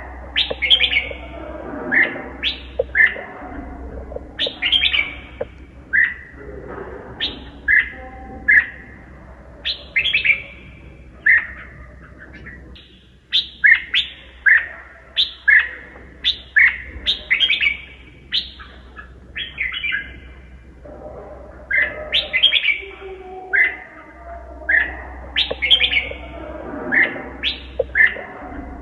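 Red-whiskered bulbul singing a long run of short, twisting whistled phrases, about one a second, with a brief pause midway. This is the kind of song played to rouse a newly caught wild bulbul. A faint low hum runs underneath.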